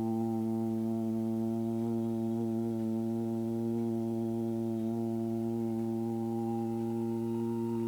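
A man's low vocal drone, sung as meditative toning of the "earth sound", held on one steady pitch with rich overtones that shift slightly.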